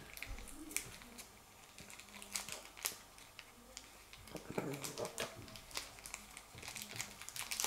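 Soft crinkling and scattered light clicks of a small accessory being unwrapped from its white paper wrapping by hand.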